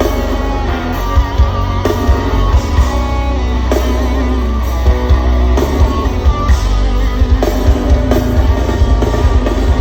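Loud band music played through a concert sound system during a sound check, with guitar over heavy, thumping bass.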